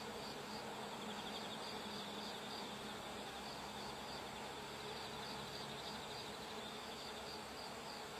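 Insects chirping steadily in a high, pulsing chorus, with a low steady background hum beneath.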